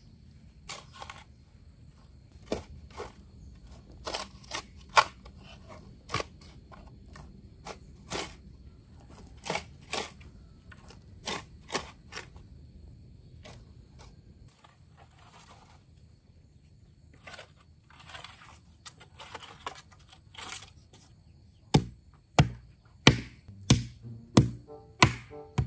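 Shovel working soil: irregular sharp knocks, a stretch of scraping past the middle, then a run of heavier thuds about two a second near the end.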